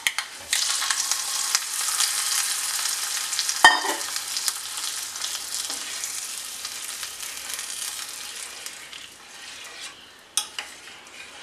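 Hot-oil tempering of mustard seeds, dried red chillies and curry leaves sizzling as it is poured into yogurt-based ash gourd pachadi. The hiss starts sharply about half a second in and slowly dies away as it is stirred in, with a single metal clink about four seconds in.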